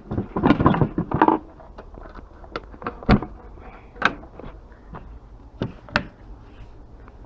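Hard objects being handled: a brief rattling clatter about a second long, followed by a handful of separate sharp knocks, as of items being moved and set down.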